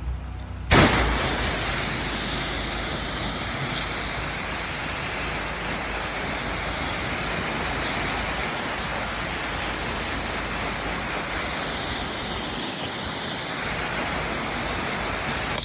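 High-pressure water spray from a 10 GPM pressure washer wand, a loud steady rushing hiss that starts suddenly about a second in as the trigger is pulled and holds at an even level.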